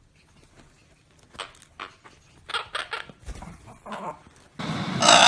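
A few short, sharp animal calls in quick succession, then a louder, noisier stretch with a strong burst near the end.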